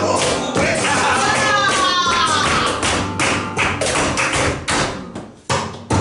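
Flamenco tangos: rapid stamping of the dancer's flamenco shoes on the wooden stage with guitar, cajón and a woman singing a gliding line about a second in. The strikes come faster and close together toward the middle, cut off suddenly about five and a half seconds in, then a few last strikes end the phrase.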